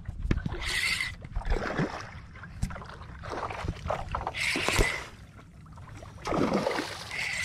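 Spinning reel being cranked while fighting a hooked trout, with scattered clicks and three short hissing bursts over a steady wind rumble on the microphone.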